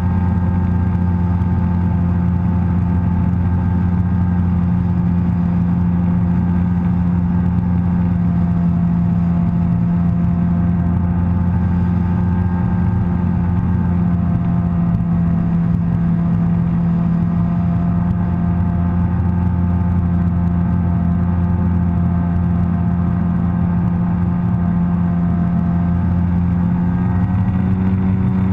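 Sea-Doo personal watercraft engine running steadily at cruising speed, about 30–35 mph, as a constant low drone. The engine note shifts slightly near the end as the craft banks.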